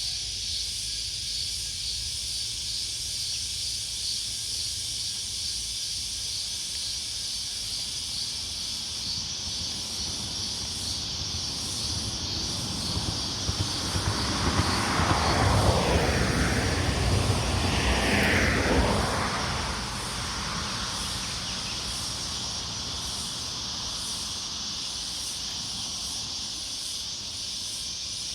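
Steady outdoor insect chorus with a pulsing high buzz. A road vehicle passes about halfway through: its sound rises, peaks, and fades away.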